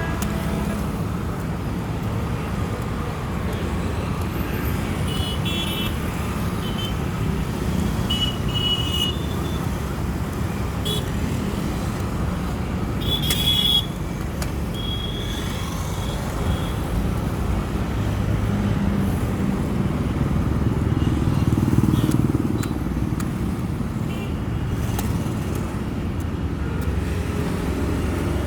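Road traffic ambience: a steady rumble of passing vehicles, with a few short horn toots now and then. The traffic swells a little louder about three-quarters of the way through.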